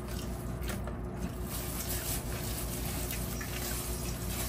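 Quiet eating sounds: faint chewing and a few light, scattered clicks of a spoon in a soup bowl, over a steady low hum.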